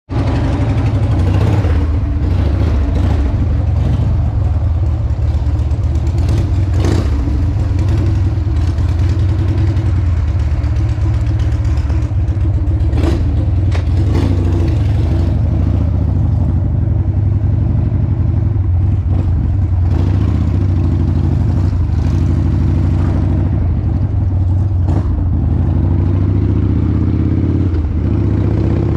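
Harley-Davidson V-twin motorcycle engine running steadily at road speed, heard from on the bike, with a few sharp clicks over it.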